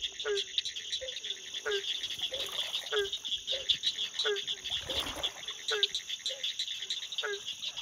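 A night chorus of frogs: one short, deep call repeated about every two-thirds of a second, over a dense, high-pitched clicking trill.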